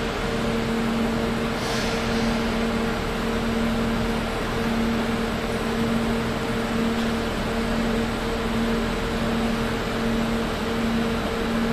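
VR Sr1 electric locomotive drawing slowly in along the platform: a steady electrical hum with two constant tones over an even rumble.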